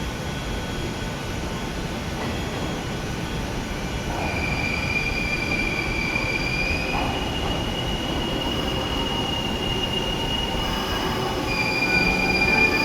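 Hanshin limited express train moving over the rails with a steady low rumble, its wheels squealing in long, steady high tones from a few seconds in, growing louder toward the end.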